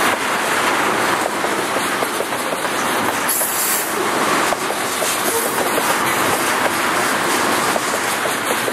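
Ethanol tank cars of a freight train rolling past close by: the steady noise of steel wheels running on the rails, with many small clicks and a brief high hiss about a third of the way through.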